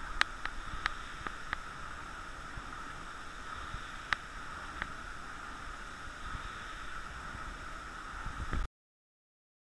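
Steady whirring hiss of Concept2 rowing machines' fan flywheels spinning during rowing, with a few sharp clicks. The sound cuts off suddenly about a second before the end.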